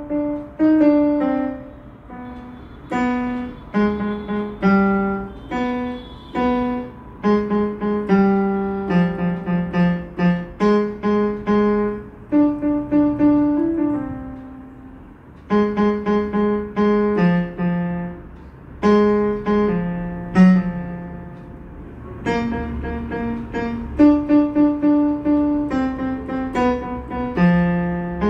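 Yamaha PSR-E473 electronic keyboard being played: a melody of struck notes over lower notes, in phrases with short pauses between them.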